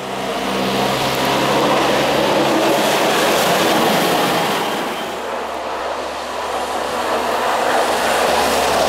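International dump-truck snow plow driving past: its diesel engine running with a heavy rush of tyres on wet, slushy pavement. The noise eases a little about five seconds in, then swells again near the end.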